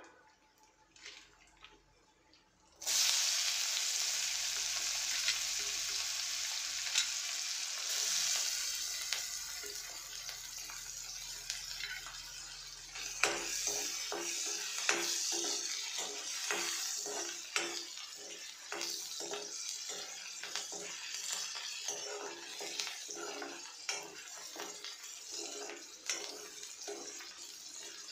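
Hot oil with mustard seeds and dried red chillies starts sizzling loudly in a kadhai about three seconds in. From about halfway, chopped onions go into the oil and a metal spoon stirs them, scraping against the pan in quick repeated strokes over the continuing sizzle.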